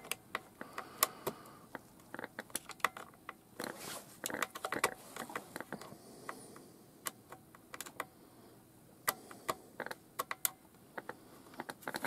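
Irregular small clicks and taps of a screwdriver and fingers working on the plastic case of a Roberts transistor radio, a few a second, as a stubborn case screw is tried.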